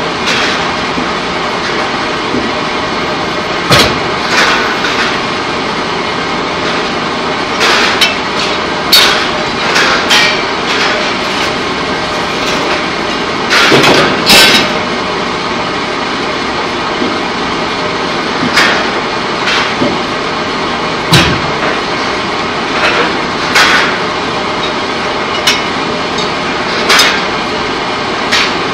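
Steady industrial din of a pipe-coating plant's machinery, broken by a dozen or so loud metallic clanks and bangs at irregular intervals, the strongest around halfway.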